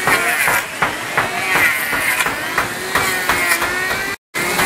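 Water pouring and splashing from a long row of stone-wall spouts, the 108 spouts of Muktinath, onto a drain grating. Irregular sharp knocks sound through it two or three times a second.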